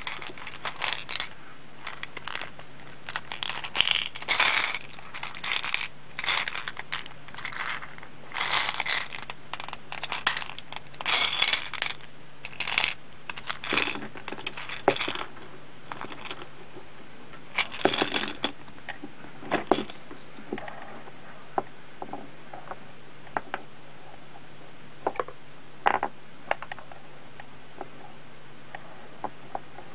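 Small plastic Hello Kitty figures and charms being handled: close rustling, clicking and scraping for about the first twenty seconds, then scattered light clicks as they are set down on a table, over a faint steady hum.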